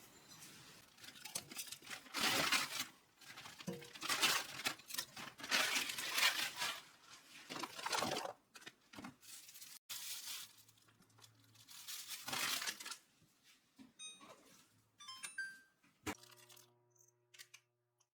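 Several bursts of tearing and crinkling, as of packaging being torn open and handled. The sound then thins out to a few faint clicks near the end.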